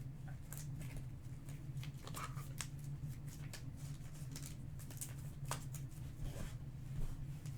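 Trading cards being handled and slid against one another: soft, scattered swishes and ticks over a steady low hum.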